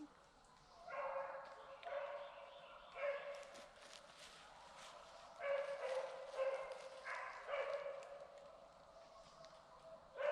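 Deer hounds baying while running a deer: a series of drawn-out bays about a second apart, starting about a second in, with a short lull midway before more bays.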